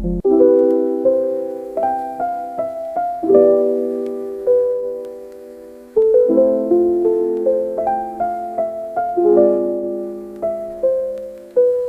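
Background piano music: a gentle melody over sustained chords, notes struck and left to fade.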